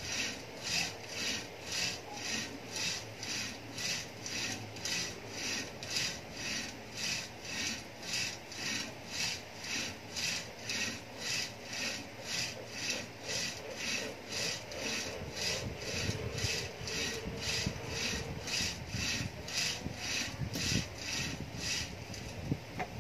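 Rope running back and forth through an overhead pulley as a shoulder-exercise pulley's handles are pulled in turn: a rhythmic rasping rub, about two strokes a second.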